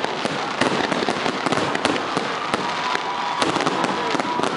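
Aerial fireworks shells bursting in quick succession: a dense, continuous run of sharp bangs and crackling.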